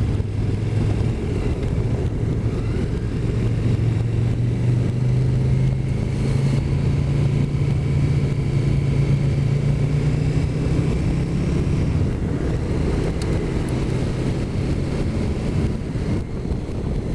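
Motorcycle engine running under way, its note slowly rising for about ten seconds as the bike picks up speed, then easing off, with wind and road rumble.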